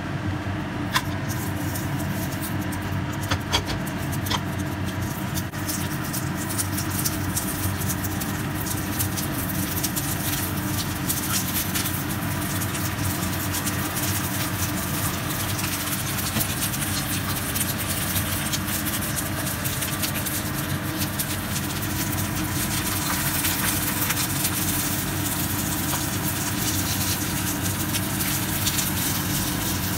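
Steady mechanical hum of a kitchen fan running over the stove, holding a few constant low tones, with light crackling from an egg and a flatbread frying in a nonstick pan.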